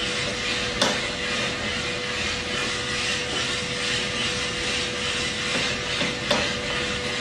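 1 kg gas-fired coffee roaster running mid-roast: a steady rushing noise of burner and fan with a steady hum tone. Two sharp clicks stand out, about a second in and again near the end.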